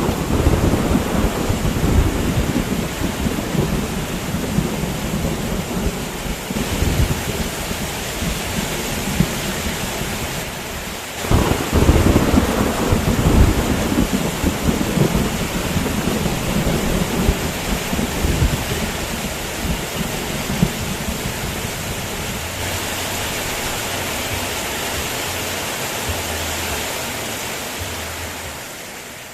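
Heavy rain hissing steadily under rolling thunder. A fresh rumble of thunder breaks in about eleven seconds in, and the whole fades out near the end.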